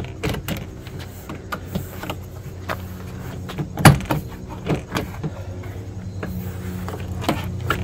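Plastic push-in trim clips popping and snapping as the interior trim panel of a Jeep Grand Cherokee WJ liftgate is pulled loose, with scattered clicks and one loud snap about four seconds in, over a steady low hum.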